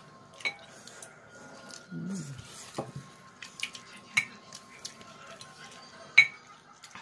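Metal chopsticks clinking against bowls and a takeout container while eating: a few sharp clinks, about half a second in, at about four seconds and loudest near the end, with fainter taps between.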